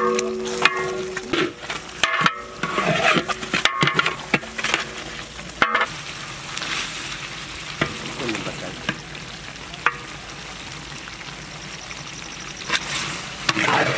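A long ladle scraping and knocking against a large metal cooking pot as thick chicken masala is stirred, over the steady sizzle of the curry cooking down. The scrapes thin out about six seconds in, leaving mostly the sizzle.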